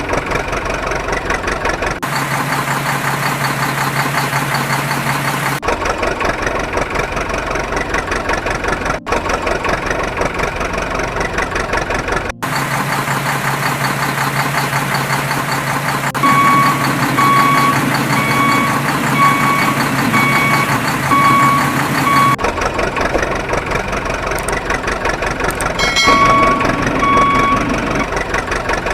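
Heavy diesel earthmoving machinery running steadily, with a backup alarm beeping at an even pace for several seconds past the middle and again briefly near the end. The engine sound changes abruptly at several points.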